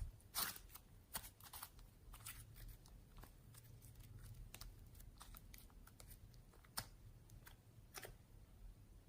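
Slime being worked by hand, quiet: faint, scattered small clicks and pops, a few slightly sharper ones near the start and toward the end.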